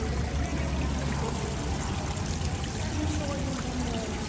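Small stream of water running and trickling over rocks, steady, with a low hum underneath.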